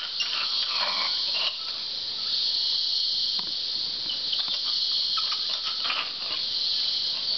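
Steady high-pitched drone of a rainforest insect chorus, with a few faint short clicks or rustles scattered through it.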